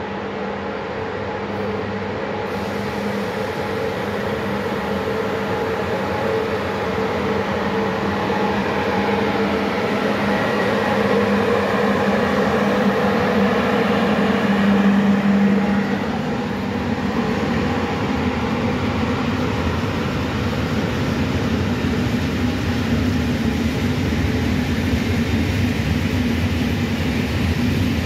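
Freight train passing: the locomotive approaches with a steady hum that swells to its loudest about halfway through and drops off as it goes by, then a long rake of open freight wagons (Eas and Eanos types) rumbles past on the rails.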